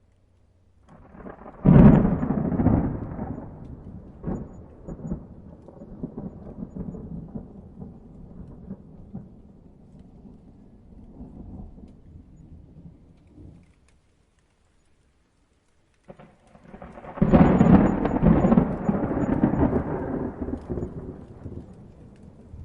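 Two peals of thunder. Each starts with a sudden loud clap and rolls off into a long, fading low rumble: the first about a second and a half in, the second about four seconds after the first has died away.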